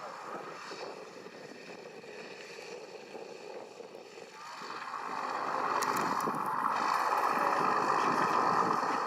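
Cessna T206H Turbo Stationair's turbocharged six-cylinder Lycoming engine and propeller, heard at a distance. It runs quietly at first, then grows louder about halfway through and holds steady as a broad rushing drone.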